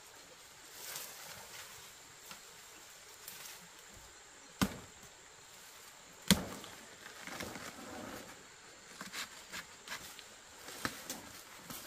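Two sharp knocks about a second and a half apart, followed by rustling and a scatter of lighter clicks, over a faint steady high insect-like hum.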